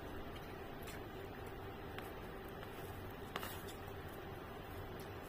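Eating sounds: a metal spoon scooping rice and vegetable stew, with a few short sharp clicks of the spoon, the loudest about three and a half seconds in, over a steady low hum.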